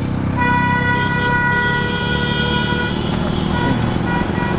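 A road vehicle's horn sounding one long steady blast, then a few short toots at the same pitch near the end, over the low running of a vehicle engine.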